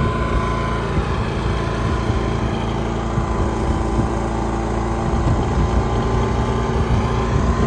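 AIVOLT portable generator's engine running steadily.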